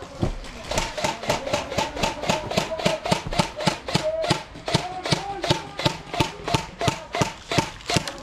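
Airsoft guns firing in quick succession, a steady run of sharp snaps at about four or five a second, with faint distant shouting underneath.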